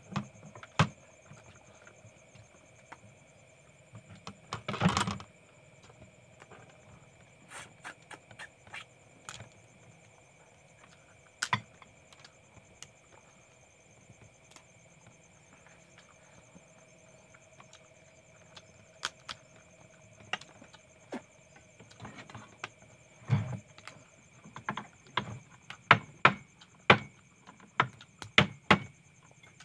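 Shells of small cooked talangka crabs cracking and clicking as they are picked apart by hand and eaten, in scattered sharp cracks with a louder, longer crackle about five seconds in and a quick run of clicks near the end.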